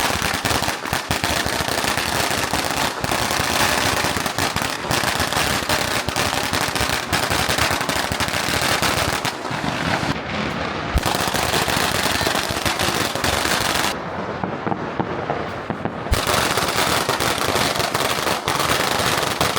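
A long string of firecrackers going off: dense, rapid popping and crackling that keeps on without a break, thinning briefly twice near the middle and end.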